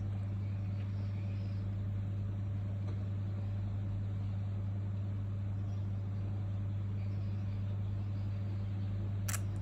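A steady low electrical or motor hum, with a single sharp click near the end.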